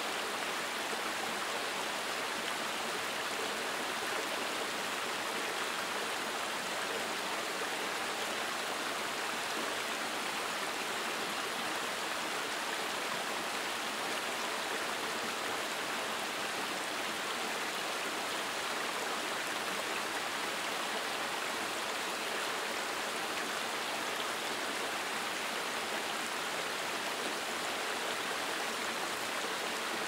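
Mountain stream running over smooth rock slabs and through a small cascade between boulders: a steady, even rush of water.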